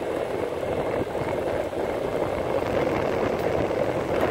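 Wheels of a Boosted electric skateboard rolling steadily on pavement, the board pushed along by foot because one of its drive belts has snapped.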